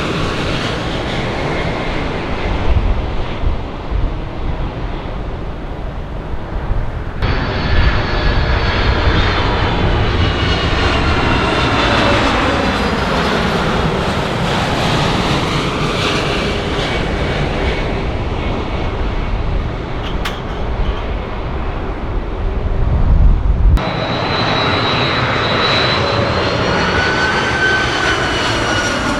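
Jet airliner engines passing close by: a loud whine whose tones glide up and down over a low rumble. Sudden cuts about seven seconds in and again near the end join three separate passes.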